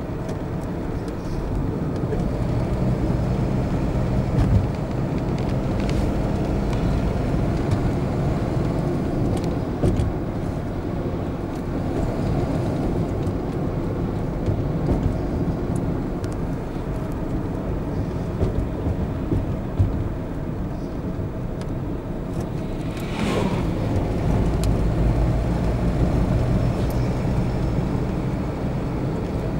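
Car driving on a paved road, heard from inside the cabin: steady engine and tyre noise with a low hum. A few sharp clicks, and about two-thirds of the way through a brief sound sweeping down in pitch.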